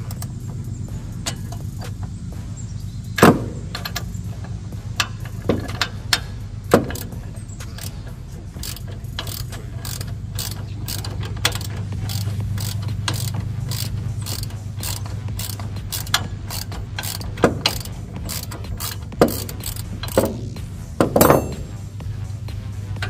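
Ratchet wrench clicking in runs while the axle bolt of a Toro TimeCutter zero-turn mower's front caster wheel is turned, with a few louder knocks of metal tools on the wooden deck. A steady low hum runs underneath.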